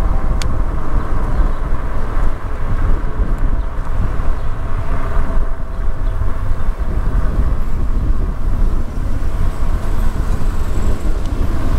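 Wind buffeting the microphone of a moving e-bike: a steady, fluttering rumble with road and traffic noise beneath.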